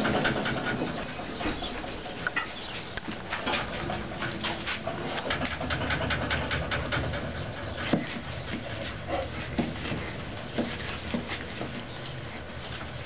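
A litter of young boxer puppies making short high squeaks as they crawl and scuffle over one another, with steady scratching and shuffling of paws on a blanket.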